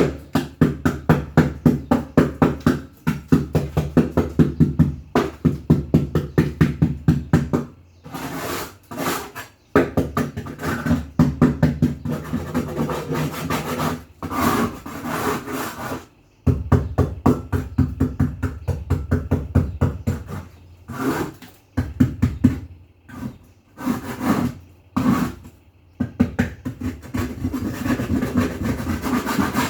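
Hand scrubbing with rapid back-and-forth rubbing strokes, about four a second, in runs broken by short pauses, typical of scrubbing a fridge part clean.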